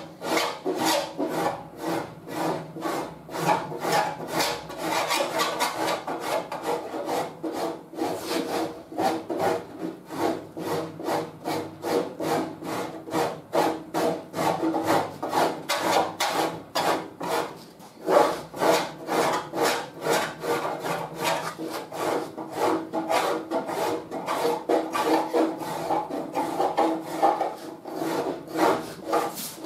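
Body-filler cheese grater file rasping over partly cured fiberglass-reinforced body filler, in quick, rhythmic strokes. It is shaving off the excess while the filler is still soft enough to cut, before it hardens too much to sand.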